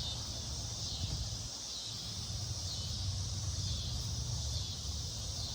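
Steady, high-pitched chirring of insects, with a low steady rumble underneath.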